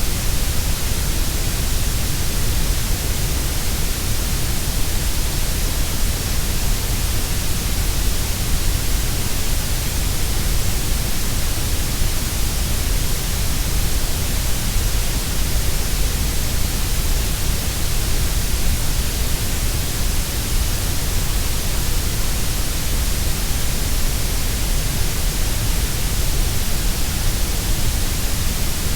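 Grey noise: steady synthetic noise with no change, strongest in the deep lows and the highs and a little weaker in the middle.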